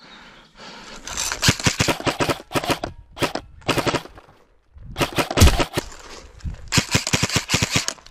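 Airsoft gun firing several rapid full-auto bursts, each a fast even run of sharp clicks, with short pauses between them.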